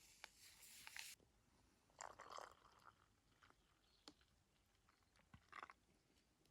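Near silence, broken by a few faint, brief rustling and crunching sounds and light clicks.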